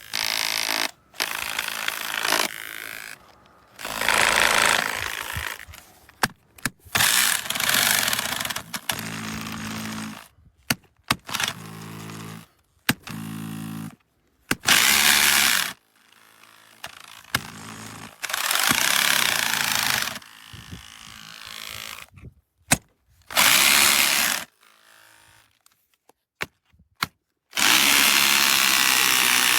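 Bosch GBH 2-21 SDS-plus rotary hammer running in repeated short bursts, switched on and off every second or two, some bursts at lower speed, with sharp clicks in the pauses. A longer run starts near the end.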